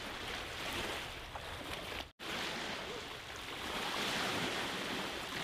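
Small waves washing on a sandy shore, with wind rushing over the microphone. The sound drops out for an instant about two seconds in.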